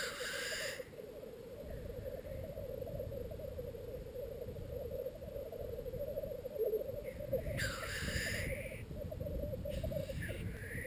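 Black grouse lekking: a continuous low bubbling coo from displaying males, broken by harsh hissing 'tchu-whee' calls, one right at the start, one about eight seconds in and another near the end.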